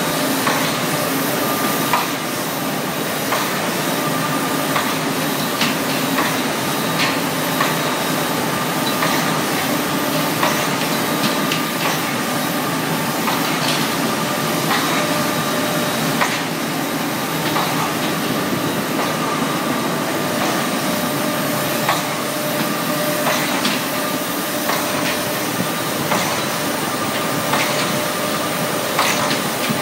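Screw machine running with an abnormal noise: a steady mechanical din with a faint hum, broken by irregular knocks every second or two.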